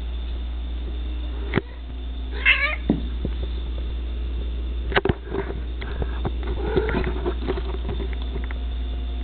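Maine Coon cat giving one short, wavering meow about two and a half seconds in. Around it come a couple of sharp clicks and a scatter of light knocks, over a steady low hum.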